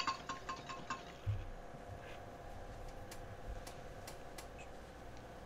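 Wire whisk clicking rapidly against a bowl while beating eggs for an egg wash, stopping within the first second. A low thump follows about a second in, then a faint steady hum with a few light ticks.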